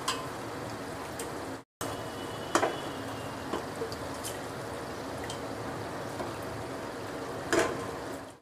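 Curd-marinated chicken pieces plopping wetly into thick onion-tomato masala in a nonstick kadhai, over a steady sizzle, with two louder wet thuds about a third of the way in and near the end.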